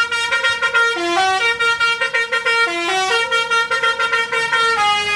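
A bus's 'telolet' musical air horn playing a tune of changing notes, with a quick run of short notes in the middle.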